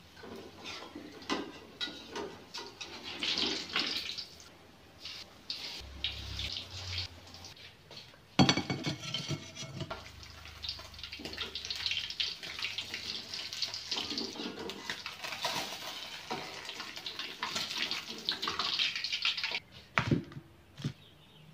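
Food frying in hot oil in a metal wok, with a metal spatula clinking and scraping against the pan. About eight seconds in, the sizzling jumps up loudly and stays as a steady hiss for about ten seconds before easing off near the end.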